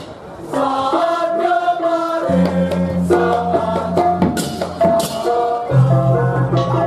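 Balinese baleganjur gamelan playing a melodic passage of stepping notes, with low sustained gong tones coming in about two seconds in and a few cymbal crashes.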